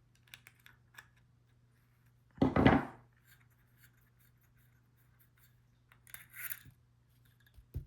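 Vintage Zippo lighter being handled: small metal clicks and scrapes from the case and insert. There is a louder sliding scrape about two and a half seconds in and a short raspy scrape a little after six seconds.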